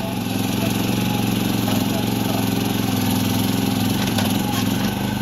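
Small engine of a mini tracked excavator running steadily while its hydraulic arm digs into soil.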